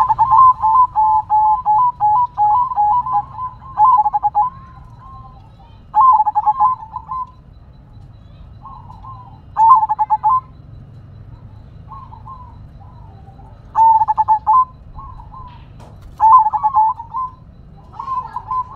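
Zebra dove (perkutut) singing its cooing song. A long run of rapid, stuttering coos fills the first four seconds or so, then shorter phrases of quick coos come every few seconds. A faint low rumble runs underneath.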